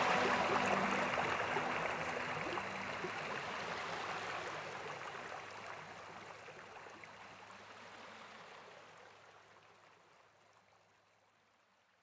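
Tail of the background soundtrack fading out: an even, hiss-like wash with no clear notes, dying away smoothly to near silence over about ten seconds.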